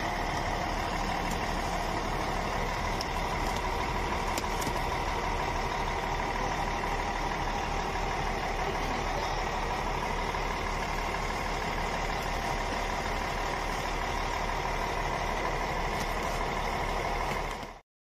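A large vehicle's engine idling steadily, cutting off suddenly near the end.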